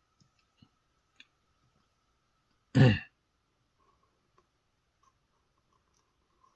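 A person clears their throat once, briefly, about three seconds in. Around it, only faint light ticks of a pen moving on paper.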